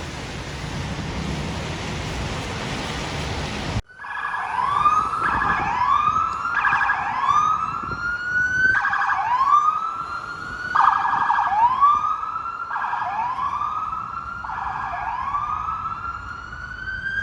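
A steady rushing noise cuts off abruptly about four seconds in. An emergency vehicle's electronic siren takes over, sweeping up in pitch again and again, about one rise a second, over a steady higher tone.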